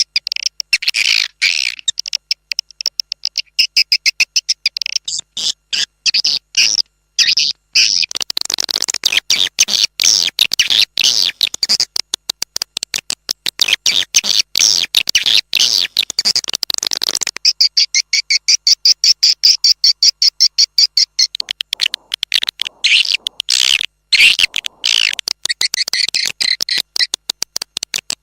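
Swiftlet lure call used in swiftlet farming: dense trains of fast, high-pitched chirps and twitters, broken by brief pauses. The chirping is fuller and noisier for several seconds in the middle.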